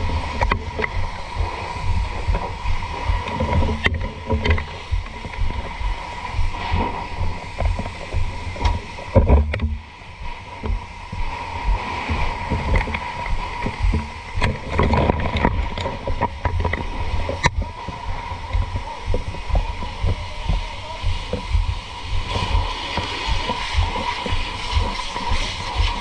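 Water rushing and splashing from a fire hose over a heavy, uneven low rumble, with a steady high-pitched tone under it and a few sharp clicks.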